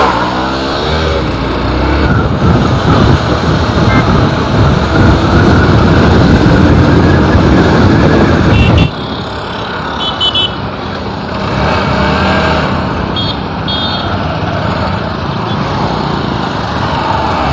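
Hero Xpulse 200 single-cylinder motorcycles riding in a group at speed: engines running under heavy wind rush on the microphone. About 9 s in the sound drops suddenly at a cut to quieter riding, with a few short high beeps.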